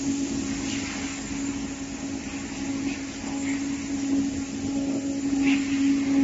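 CNC oscillating knife cutting machine running over corrugated cardboard: a steady mechanical hum with a constant pitch and a background hiss, broken by a few short, higher hissing sounds.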